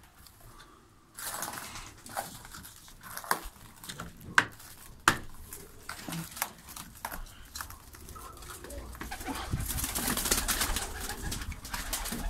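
Domestic pigeons cooing in a small wooden loft, under a run of sharp clicks and knocks from handling and movement. The loudest are two knocks about four and five seconds in. About two-thirds of the way through comes a louder stretch of rustling noise.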